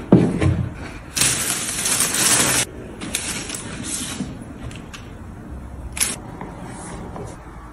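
Cardboard gift box opened with a low thump, then tissue paper rustling loudly for over a second as a leather handbag is drawn out of it, followed by softer crinkling and a few light taps.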